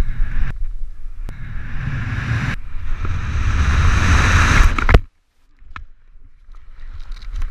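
Wind rushing over a body-worn camera's microphone during a BASE-jump freefall. The rush grows louder for a couple of seconds and cuts off suddenly about five seconds in. Fainter wind noise returns near the end.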